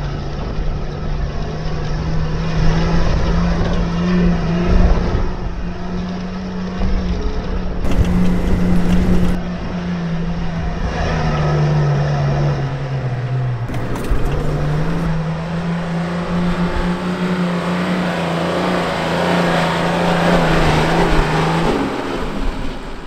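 4WD ute engine at full throttle in third gear, labouring up a steep soft-sand dune. Its note rises, sags about halfway through as the ute bogs down, climbs again, then cuts off shortly before the end, over a steady rumble of tyres churning sand.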